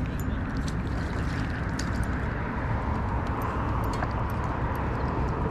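Ultralight spinning reel being cranked as a crappie is reeled in and swung aboard, giving small scattered clicks over a steady low rumble.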